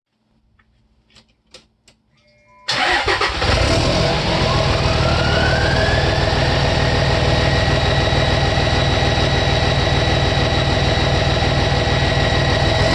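A few faint clicks, then about three seconds in a 2006 Cummins 5.9-litre inline-six turbodiesel with a 5-inch straight-pipe exhaust starts abruptly and runs at a loud idle. From about four seconds the 63 mm Fleece Cheetah turbo spools up into a rising whistle, which then holds as a steady high whistle.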